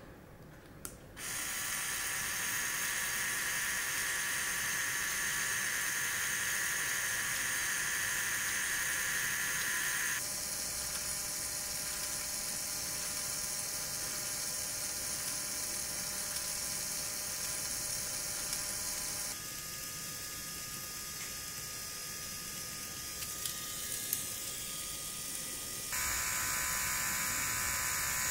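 Small LEGO Technic electric motor running steadily through plastic gears and a half-cylinder cam mechanism: a steady whine with a gear hum. It starts with a click about a second in, and its pitch and tone change three times, with a few light clicks shortly before the last change.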